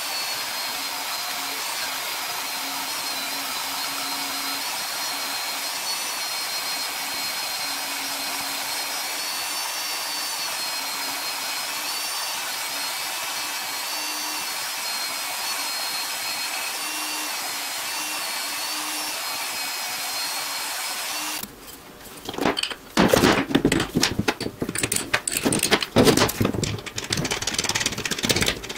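Metal-cutting vertical bandsaw running steadily as it cuts the profile of a steel mounting plate, with a faint wavering whine over an even hiss. About 21 seconds in it stops abruptly, and irregular clicks and knocks of small metal parts being handled follow.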